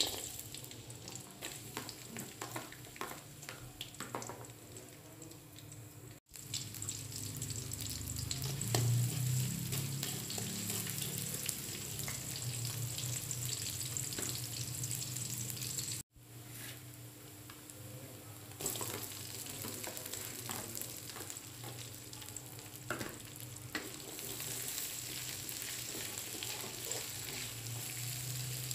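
Sliced shallots and garlic, and later cut chillies, sizzling in shallow hot oil in a wok while a spatula stirs and scrapes them, giving a steady frying hiss with many small clicks. The sound cuts out briefly twice.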